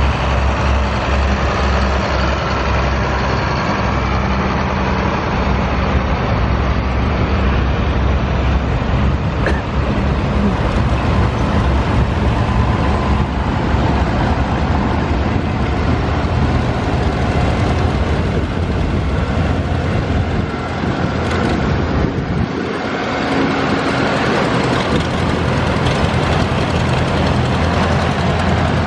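A procession of farm tractors, modern and vintage, driving slowly past one after another, their engines running steadily.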